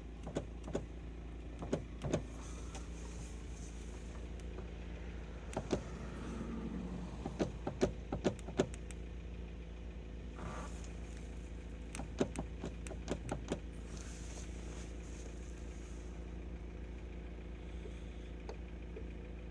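Lada Priora on the move, heard from inside the cabin: a steady low drone with scattered knocks and clatters, bunched in a few clusters about two seconds in, around eight seconds in and around twelve to thirteen seconds in. The knock comes on bumps, and the owner suspects a loose joint that moves up and down.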